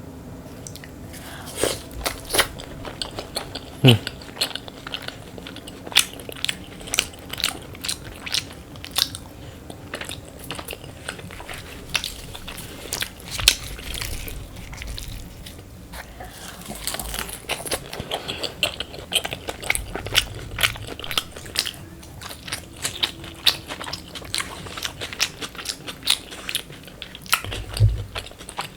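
Close-miked chewing and biting of a meal of luchi, chana dal and crispy fried potato, with irregular sharp crunches and mouth clicks throughout. There is a short falling squeak about four seconds in.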